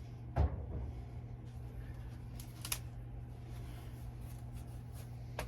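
Steady low hum with one thump about half a second in and a couple of faint clicks or knocks later, like things being handled and set down.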